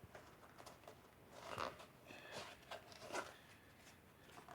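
Faint handling noise: soft rustling and scuffing as the flap on the end of an Air-EZ skid is pulled open by hand, with a few brief scuffs about a second and a half, two and a half, and three seconds in.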